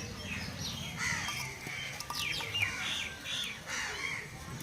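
Birds chirping and calling, a string of short, quick, falling chirps one after another.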